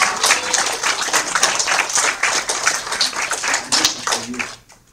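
Audience applauding: many hands clapping in a dense patter that thins out and dies away about four and a half seconds in.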